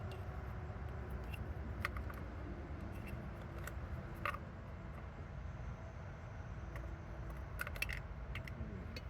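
Metal transmission parts being handled as the tail shaft housing is fitted: scattered light clicks and clinks, with a quick run of them near the end. A steady low hum sits underneath.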